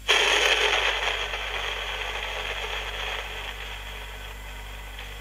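Siemens Trabant RC 601 portable cassette recorder switched into playback, its small built-in speaker giving a rushing, hiss-like sound without a clear tune. It starts suddenly, is loudest in the first second and slowly fades. This is a playback test on an external 5 V supply with a too-tight replacement belt, which the owner thinks could be overloading the motor and making the playback speed slowly drop.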